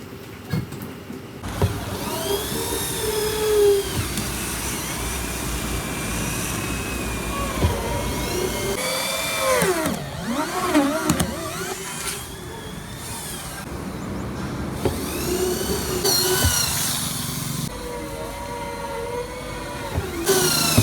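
Factory machinery and power tools running, with motor whines that rise and fall in pitch and a few knocks, the sound changing abruptly every few seconds.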